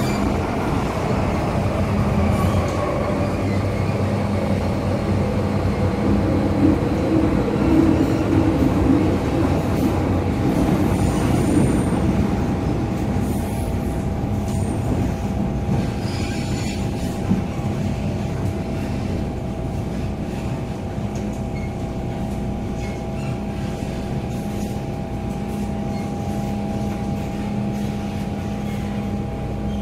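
MTR M-train heard from inside a passenger car while running between stations: a continuous rumble of wheels on rail under a steady drive tone. Brief high wheel squeals come a little before the middle.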